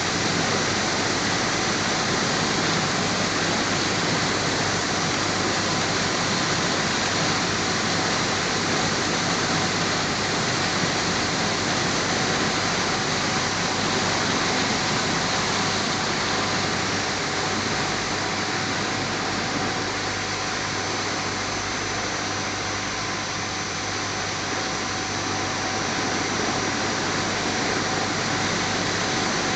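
Turbine condenser backwash water jetting out in a heavy spray and splashing against a wooden board: a steady rush of water that eases a little in the middle and then comes back up.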